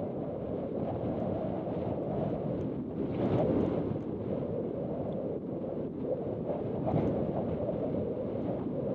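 Wind noise on the microphone: a steady low rush with slight swells.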